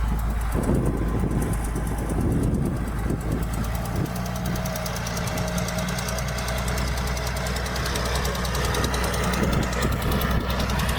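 Diesel engine of heavy earthmoving machinery running steadily, its tone shifting slightly about four seconds in.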